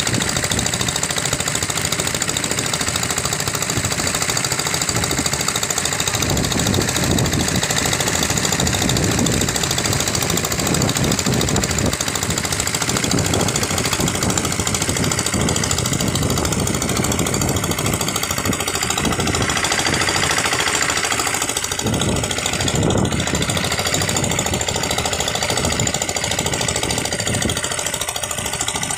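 Fishing trawler's engine running steadily.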